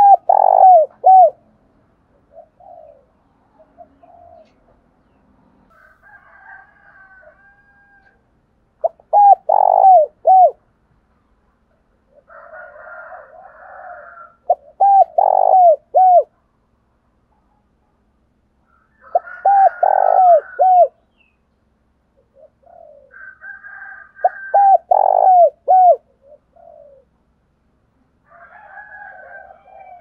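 Spotted dove cooing: five loud phrases of three or four quick coos each, a few seconds apart, with fainter, rougher calls in between. This is the male's cooing song, used as a decoy call to stir up wild doves.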